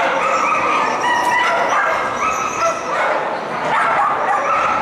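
Dogs barking and yipping without pause, the barks overlapping one another.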